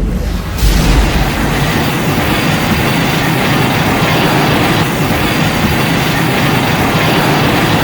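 Custom recreation of the 1954 Godzilla roar, made by repitching the Millennium-era roar: one long, loud, steady roar that comes in about half a second in and holds to the end.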